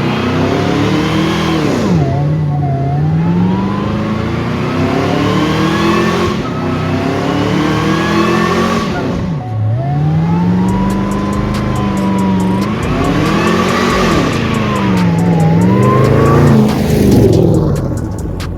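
Car engine accelerating hard, its pitch climbing and then dropping sharply about three times like gear changes, with a thinner higher whine gliding above it.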